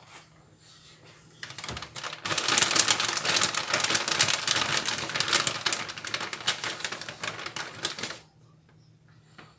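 Shredded cheese being sprinkled onto a pizza by hand: a dense, fast crackly rustle that starts about a second and a half in and stops shortly before the end.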